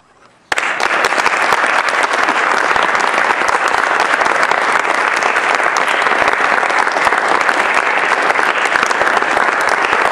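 Audience applauding, a dense, steady patter of many hands clapping that cuts in suddenly about half a second in.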